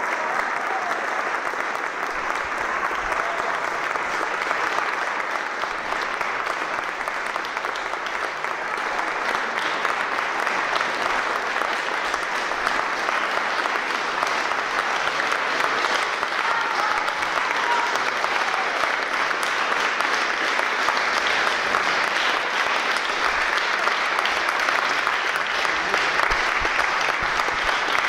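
Concert audience applauding steadily, growing a little louder after the first few seconds.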